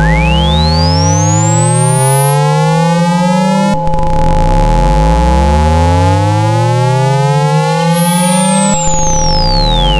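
Synthetic speaker-cleaning tones for ejecting water from a phone speaker: steady pure tones over a low hum, with rising low sweeps repeating about every two seconds. A high whistle glides up over the first four seconds and sweeps back down near the end.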